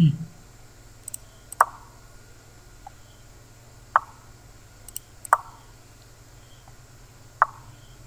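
Online chess site's piece-move sound effect, a short hollow tock played four times, a second or two apart, as the moves land. A few faint mouse clicks fall between them, and a short low sound comes at the very start.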